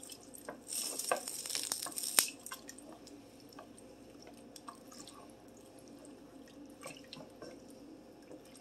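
Wooden spoon stirring a wet tomato-and-sausage mixture in an enamel Dutch oven on the stove, with wet stirring sounds and small clicks of the spoon against the pot. A louder hissing stretch with sharp clicks comes about a second in, then the stirring goes on faintly.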